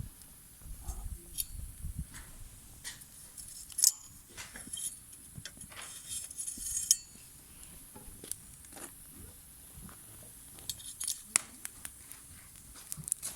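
Wood fire crackling, with irregular sharp snaps and pops of burning firewood, a few louder than the rest.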